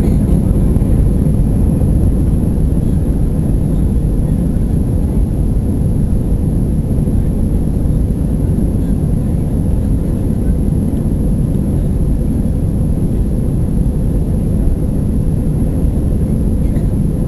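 Airbus A320 cabin noise while taxiing: a steady low rumble of the engines and wheels heard from inside the cabin, holding level without any spool-up.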